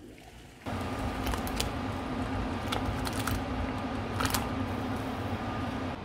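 Water boiling hard in a stainless steel pot on an induction hob, a steady rushing noise with a hum under it that starts suddenly under a second in. A few light metallic clinks, likely from the pot lid, come through it, the loudest around four seconds in.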